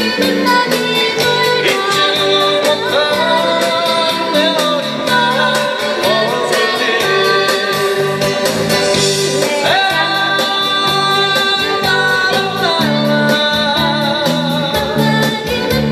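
Live acoustic band music: strummed acoustic guitars and a djembe keeping a steady beat, with a woman singing lead into the microphone.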